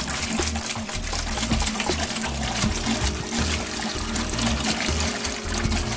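White vinegar pouring in a steady stream from a plastic gallon jug into a large metal steam pot, splashing into the liquid already in it.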